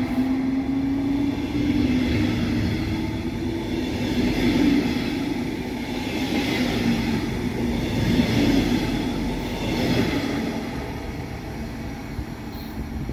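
Electric train running through the station, with wheel and track rumble and a steady motor whine that rises slightly in pitch and fades out a few seconds in; the rumble slowly dies away toward the end.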